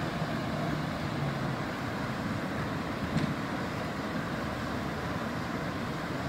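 River rapids rushing steadily: white water pouring over rocks close by. There is a brief click about three seconds in.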